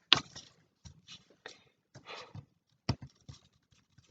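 Paper printouts and cardboard being handled: a sharp click, then scattered soft rustles and knocks, with one louder knock about three seconds in.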